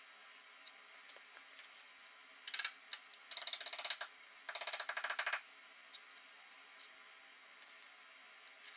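MIG welder laying short tack welds on the truck's rocker panel steel: three bursts of rapid crackle, a brief one about two and a half seconds in, then two longer ones of under a second each.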